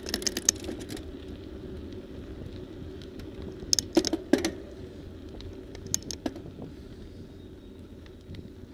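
Riding a bicycle up an asphalt road: a steady rumble of tyres and wind, with clusters of sharp rattling clicks from the bike and camera mount jolting over bumps at the start, around four seconds in and again around six seconds in.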